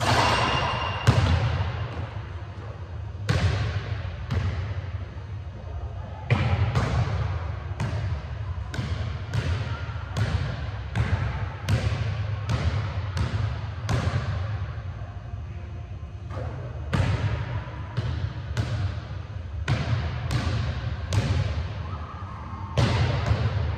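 Basketball bouncing on a hardwood gym floor, dribbled at about two bounces a second, each bounce sharp and echoing around the large hall, with a short pause a little past halfway.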